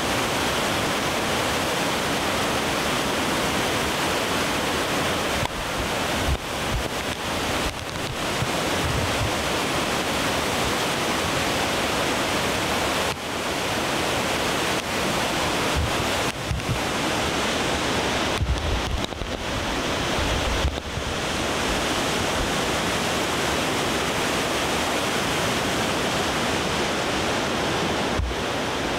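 A river in flood, its muddy whitewater rushing and churning in a steady, even rush. Low gusts of wind buffet the microphone now and then.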